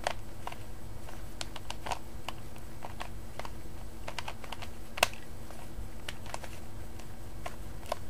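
Plastic Rubik's cube being turned quickly by hand: irregular clicking and clacking as the layers snap round, several turns a second, with one sharper click about five seconds in.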